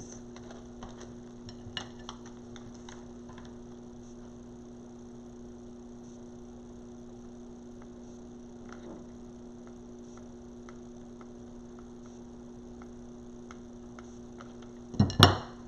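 Steady electrical mains hum with faint, scattered light clicks and taps of hands handling craft materials, and one loud sharp thump near the end.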